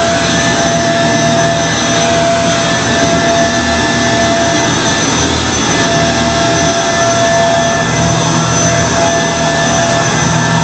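Kenmore Progressive Intelliclean vacuum cleaner running steadily, its motor giving a loud rush of air with a high, steady whine, while the powerhead's brush rolls over the carpet with a low hum that comes and goes.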